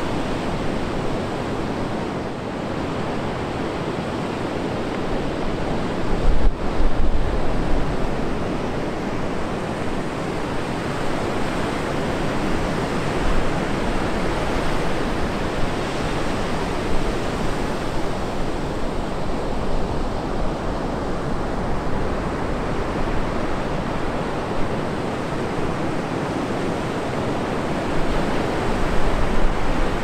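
Atlantic Ocean surf breaking and washing up a sandy beach as a continuous wash of waves, with louder low rumbles about six seconds in and near the end.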